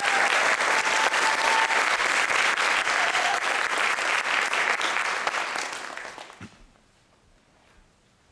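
Audience applauding a violinist as he takes the stage, dying away about six seconds in.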